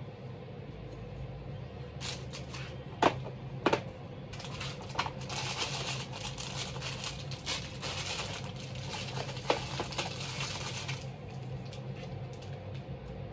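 Crinkling and rustling, as of plastic or paper being handled, with a few sharp clicks over a steady low hum. The crinkling starts about four seconds in and stops near eleven seconds.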